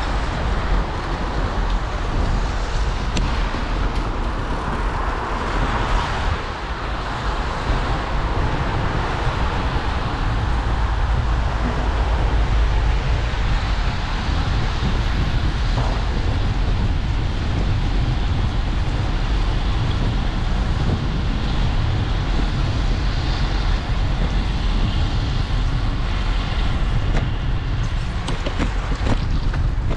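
Steady wind noise on a GoPro's microphone from riding a bicycle through wet city streets, with a constant low rumble of road and traffic noise underneath.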